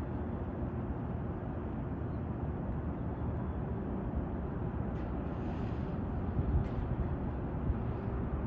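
Steady low rumble of distant city traffic, with a few faint, brief higher sounds in the second half.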